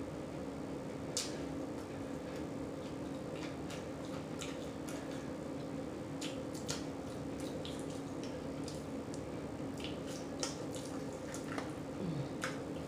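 Close-up mouth sounds of someone eating: wet lip smacks and clicks at an irregular pace while chewing, over a steady low hum.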